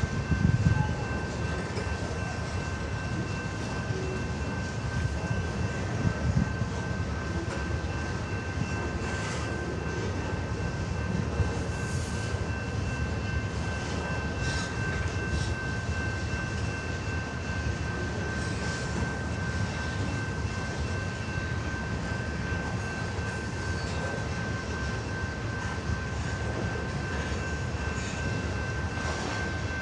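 Canadian National freight train rolling past on the rails: a steady rumble of wheels and cars, with a thin high whine held throughout and a couple of brief louder knocks in the first several seconds.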